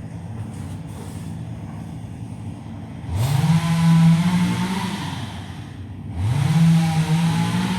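A two-stroke chainsaw running in the background: idling, then revved up twice, first about three seconds in and again near the end. Each time the pitch climbs, holds for a second or two, then drops back.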